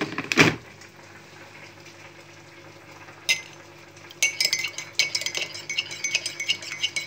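A metal teaspoon stirring a sauce in a ceramic mug. It gives a single clink, then from about four seconds in clinks rapidly and ringingly against the mug's sides. A loud thump comes right at the start.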